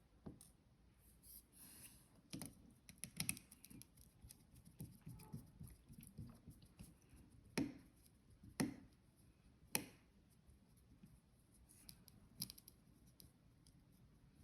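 Faint handling sounds: scattered light taps and scrapes, with three sharper clicks about a second apart past the middle.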